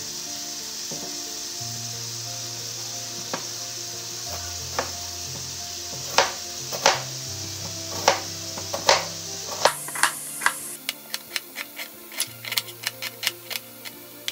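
Chicken fillet sizzling in a frying pan, with a few sharp knife cuts through an onion on a plastic cutting board. About ten seconds in the sizzling stops and quick knife chopping of the onion takes over, about four strokes a second.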